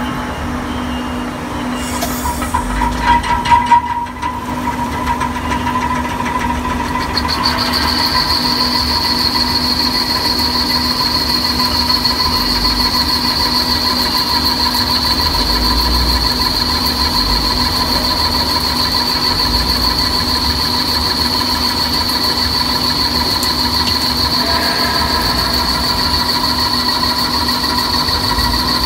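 CNC lathe running at high spindle speed while a threading insert cuts a male thread on a metal shaft. There is a steady machine hum, a few loud clattering knocks about two to four seconds in, and a high steady whine that joins at about seven seconds and holds.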